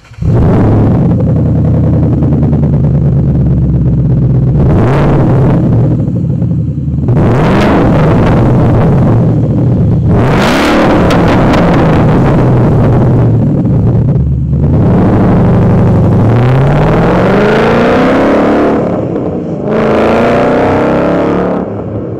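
2012 Ford Mustang 5.0 L V8 with a MagnaFlow aftermarket exhaust, loud and accelerating hard from a take-off. The exhaust note repeatedly rises in pitch, with brief breaks about four times as it runs up through the revs, then fades near the end.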